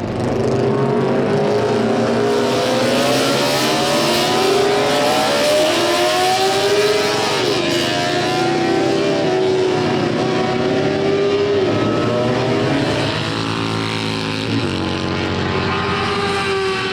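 High-revving Honda six-cylinder Grand Prix racing motorcycle engine, its pitch rising and falling as it revs, then holding a steadier note near the end.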